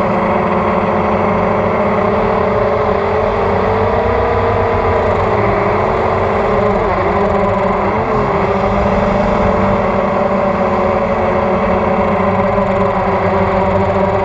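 Hexacopter's brushless motors and propellers whining, recorded from on board. Their pitch dips and rises a few times with the throttle as the craft manoeuvres.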